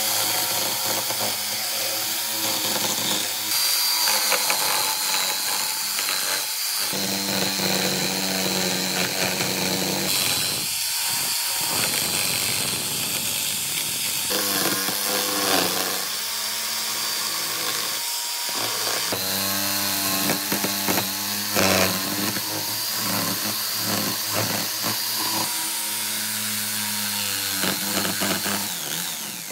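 Electric power tools working wood. The sound changes abruptly every few seconds, as one short clip cuts to the next, with a steady motor hum under the cutting noise.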